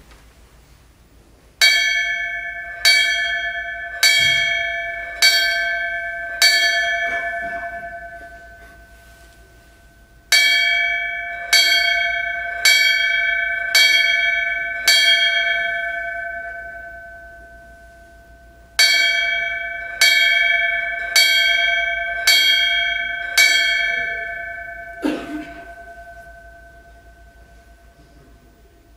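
A brass fire department bell struck in three sets of five strokes, about a second apart, with a pause between sets and each stroke ringing on. This is the 5-5-5 signal, once tapped out over the fire alarm telegraph when a firefighter fell in the line of duty. A soft knock follows near the end.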